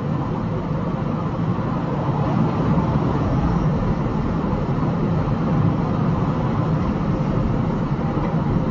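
Steady road and engine noise of a truck driving at highway speed.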